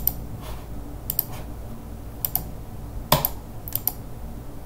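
Computer keyboard keystrokes and mouse clicks: about a dozen irregular sharp clicks, several in quick pairs, as a short name is typed into a software dialog, over a faint steady low hum.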